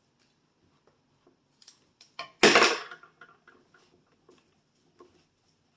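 Plastic toy packaging and small parts being handled while a doll is worked free of its box: scattered small clicks and knocks, with one loud clatter about two and a half seconds in.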